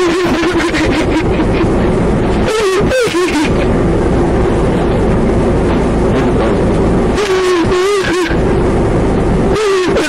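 A woman's voice held in a long, wavering wail, broken twice by short gasps, over the steady low rumble of a car.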